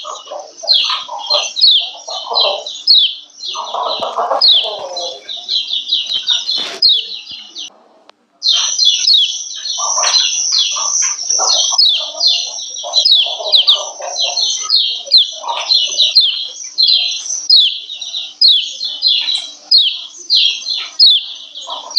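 Female kecial kuning (yellow white-eye) giving rapid, repeated high 'ciak ciak' chirps, each a quick downward-sweeping note, several a second, with lower chattering beneath and a brief break about eight seconds in. This is the female call used to bring male kecial into breeding condition and set them singing.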